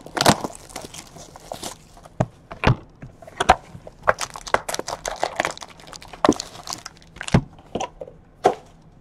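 Trading cards and card packs being handled on a tabletop mat: cards sliding and rustling against each other, with a series of sharp taps and clicks as cards and packs are squared up and set down.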